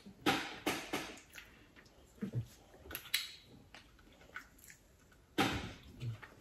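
Close-up eating sounds of Maryland blue crab: shell being picked apart by hand and the meat sucked and chewed, in a string of short, separate noises, with a louder cluster about a second in and another near the end.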